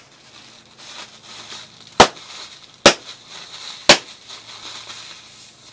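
Inflated plastic air-pillow packing being squeezed by hand and popping: three sharp, loud pops about a second apart, with plastic crinkling between them.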